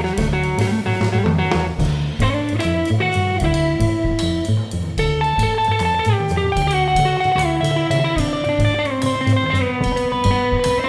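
Jazz trio playing: an electric guitar plays a single-note melody of held notes that steps down in pitch over the second half, over plucked upright double bass and a drum kit keeping time with regular cymbal strokes.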